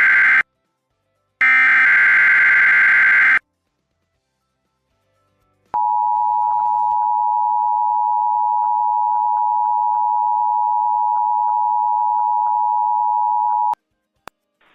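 NOAA Weather Radio alert signalling: buzzy digital SAME header bursts, one ending just after the start and a second lasting about two seconds. After a short pause comes the steady single-pitch 1050 Hz warning alarm tone, held for about eight seconds and cut off suddenly, which marks the start of the weekly alarm test.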